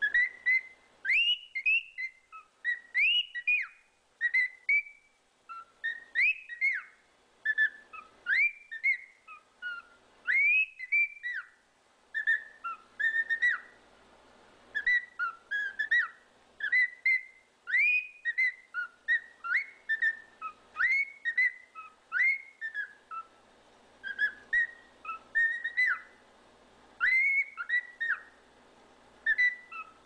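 Cockatiel whistling: a continuous run of short, slurred whistle notes, many sliding up or down, in quick phrases separated by brief pauses.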